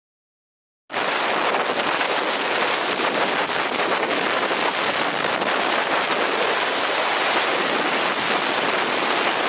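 Silent for about the first second, then a steady rush of wind on the microphone of a moving scooter, mixed with road noise.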